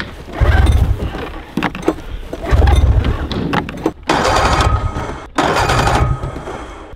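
Snowmobile engine being cranked in several short attempts, each a second or less, without staying running: the owner suspects it is flooded.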